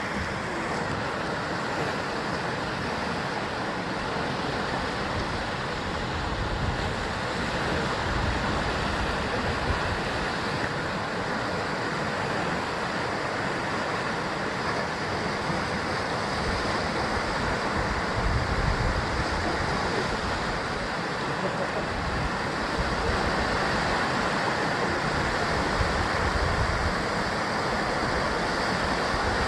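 Ocean waves surging and breaking against a rocky basalt-column shore, a continuous wash of surf with swells rising and falling, and some wind buffeting the microphone.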